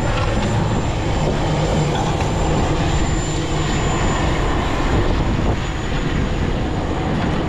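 A steady, continuous low mechanical drone under an even rushing noise, with no break or change.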